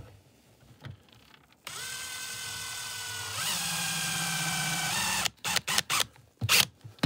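Power drill driving a carbide stud into a rubber boot sole: the motor runs steadily for about three and a half seconds, its note changing about halfway through as the stud bites in. It is followed by a few short blips of the trigger.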